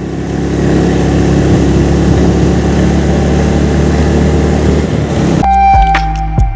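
Steady engine rumble and road noise from a moving vehicle. It cuts off abruptly about five and a half seconds in, and flute music takes over.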